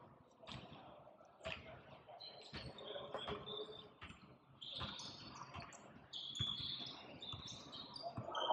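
Basketball game on an indoor court: sneakers squeaking on the hardwood floor in short high chirps, and the ball bouncing in scattered knocks.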